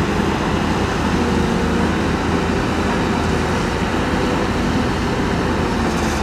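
Diesel engine of a heavy tracked excavator running steadily, a continuous low-pitched machine noise.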